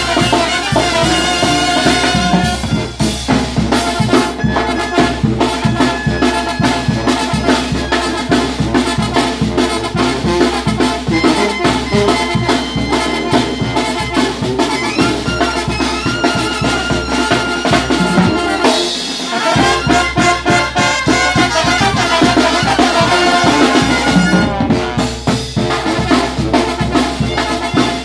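Live brass band of sousaphone, trombones and trumpet, backed by conga and snare-type drums, playing a lively tune over a steady, driving drum beat. The bass drops out briefly about two-thirds of the way through.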